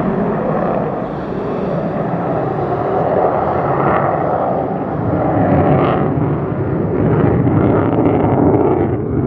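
F-35A Lightning II jet in flight, its single F135 turbofan heard as loud, continuous rumbling jet noise that swells a little in the second half.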